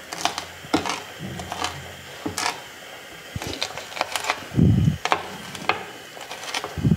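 Fresh ginger and green chillies being crushed by pounding with a heavy round object on a board: a run of irregular sharp knocks and taps, with one heavier thud a little past the middle and another at the end.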